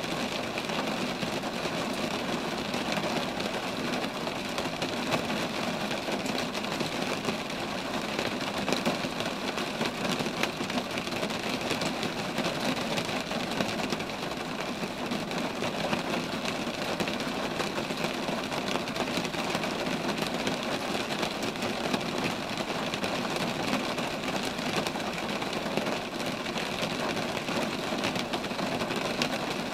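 Steady rain falling on roadside trees: an even, unbroken hiss of many small drop impacts that neither rises nor falls.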